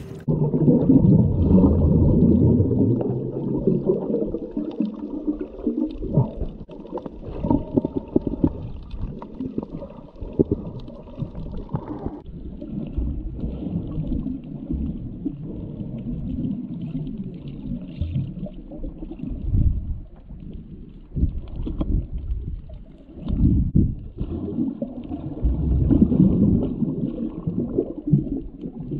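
Muffled underwater sound picked up by a camera in a waterproof housing: low rumbling and gurgling of water and bubbles as a snorkeler dives and swims. A faint steady hum runs through the first twelve seconds or so and then stops.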